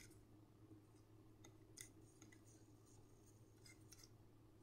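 Near silence: a few faint ticks and scratches of a pen writing on a paper worksheet, over a low steady hum.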